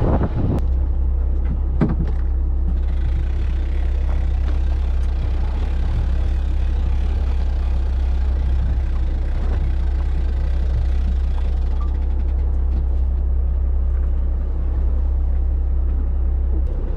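Charter fishing boat's engine running with a steady low drone, with a couple of knocks in the first two seconds.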